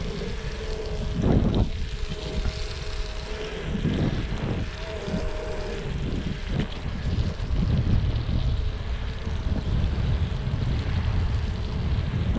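Xiaomi M365 Pro 2 electric scooter riding through powder snow: a faint whine from its electric motor over a steady low rumble, with gusts of wind on the microphone.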